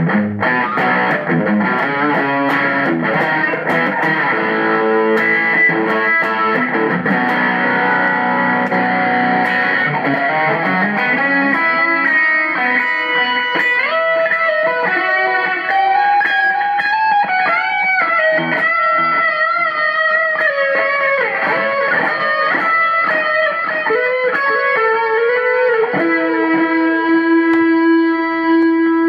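Electric guitar played through a Zoom G3Xn multi-effects pedal on a driven amp-simulation preset: full chords for the first ten seconds or so, then a single-note lead line with pitch bends, ending on a long held note.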